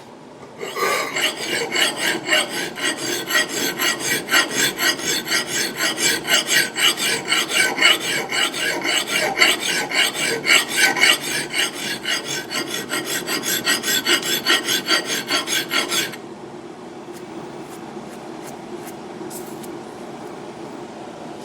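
Hand file rasping across the steel bit of an axe in quick, even strokes, sharpening the edge and raising a wire edge. The filing stops about 16 seconds in, leaving a faint steady hum.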